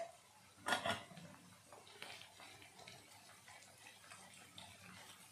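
Ginger-garlic paste and chopped onions sizzling in hot oil in a non-stick kadhai, with a spatula stirring and scraping through them; a louder clatter of the spatula against the pan comes just under a second in.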